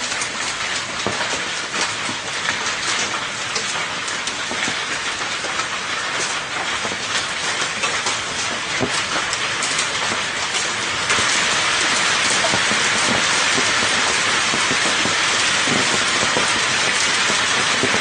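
Hailstones and rain pelting corrugated roofing: a dense, loud patter full of sharp clicks of hail hitting the sheets. About eleven seconds in it suddenly becomes a louder, steadier hiss.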